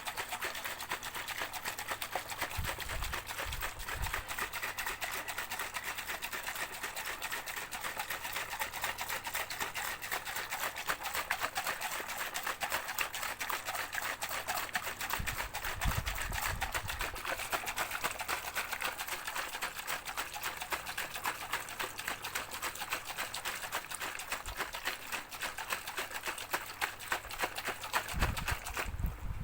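A shaker shaken continuously, giving a fast, dense, steady rattle, with a few low thumps.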